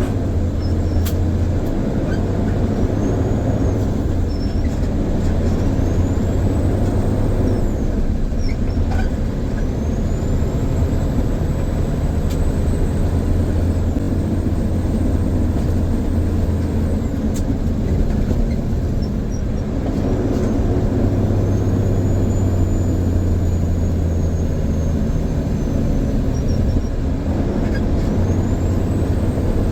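Grain truck engine running under way, a steady low rumble that drops away briefly twice, as at gear changes. A high whine rises and levels off several times as the truck pulls.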